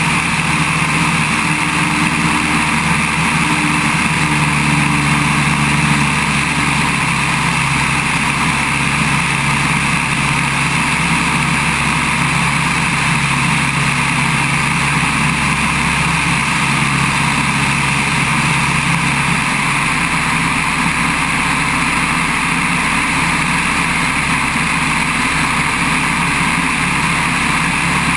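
Open-cockpit biplane's engine running steadily in flight, with the loud rush of the slipstream over the wing-mounted microphone. The engine's low drone is strongest in the first few seconds.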